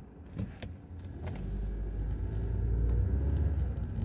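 Car moving off from a stop, heard inside the cabin: a low engine and road rumble sets in about a second in and grows louder, after a few light clicks at the start.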